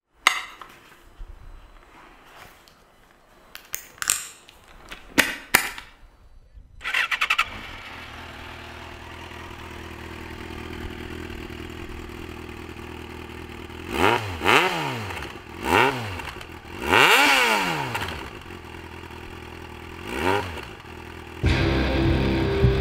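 A few clicks and knocks, then a motorcycle engine with an Arrow aftermarket exhaust starts and idles steadily. The throttle is blipped four times, each rev rising and falling back to idle.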